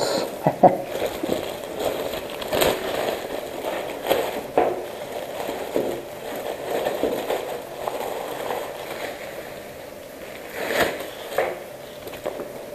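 Clear plastic packaging bag crinkling and rustling on and off as it is torn open and pulled off a hydration bladder, with sharper crackles now and then.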